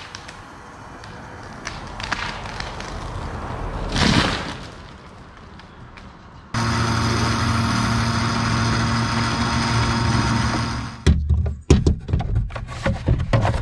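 A dead ash tree coming down, its crown crashing to the ground about four seconds in. After a sudden change, a loud steady humming drone, with a quick run of knocks and thumps near the end.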